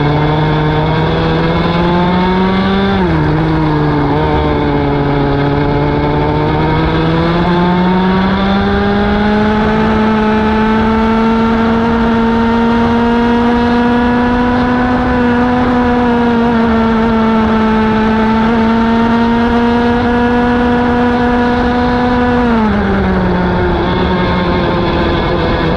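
Onboard sound of a racing kart's engine under hard acceleration: its note climbs, drops sharply when the driver lifts off for a corner about three seconds in, climbs again and holds high down the straight, then drops sharply again near the end.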